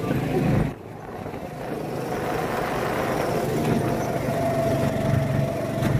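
Go-kart engine running as the karts drive round the track: a steady low drone over road and engine noise, briefly dropping away about a second in, with a steady higher whine joining in the last couple of seconds.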